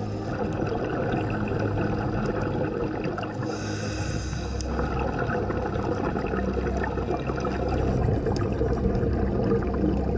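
Gurgling, sloshing water over steady low humming tones that shift in pitch about four seconds in.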